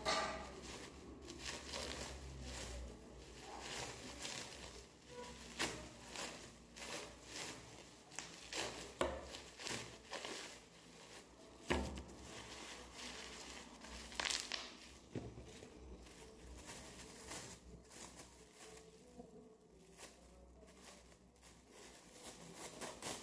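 Clear plastic packaging bags being handled and unwrapped, crinkling and rustling in irregular crackles, with a few sharper snaps here and there.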